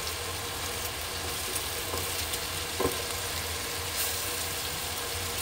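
Onion-tomato masala and potato chunks sizzling steadily in oil in an aluminium pot, with a couple of faint knocks near the middle.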